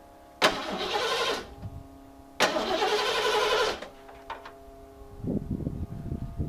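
Starter cranking the carbureted 351 Windsor V8 of a 1991 Ford F250 in two bursts of about a second each, then the engine firing unevenly and catching near the end, just after its idle screw has been adjusted.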